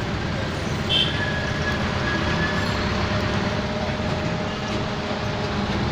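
Steady city road traffic: a continuous low rumble of vehicle engines, with a brief high-pitched chirp about a second in.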